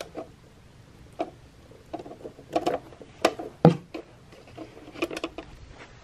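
A small electric space heater's power cord being unwound and handled: scattered clicks and short rustles, with a sharp knock about three and a half seconds in, the loudest.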